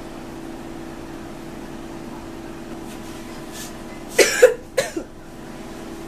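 A person coughing twice in quick succession, about four seconds in, over a steady low hum.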